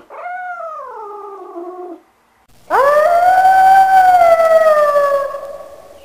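Grey wolf howling: one long, loud, steady call that sinks slowly in pitch and fades near the end. It follows a shorter call in the first two seconds that falls in pitch.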